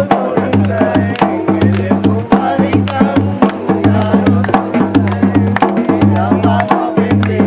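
Music with a repeating bass line and rapid, sharp percussion hits.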